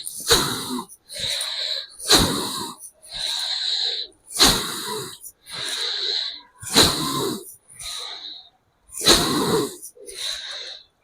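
Bhastrika pranayama (bellows breath): a man breathing forcefully through the nose, a loud, sharp breath followed by a softer one. About five breath cycles at a steady pace, roughly one every two seconds.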